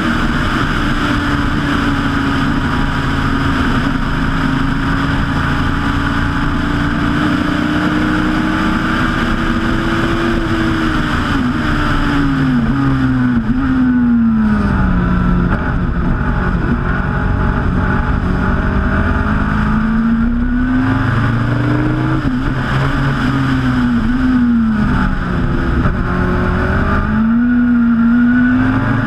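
Turbocharged Suzuki Hayabusa four-cylinder engine of a Westfield Megabusa race car, heard from its open cockpit. It holds high revs at first, then about halfway the revs fall in several quick steps as it shifts down. After that it climbs and drops again and again as it changes up through the gears.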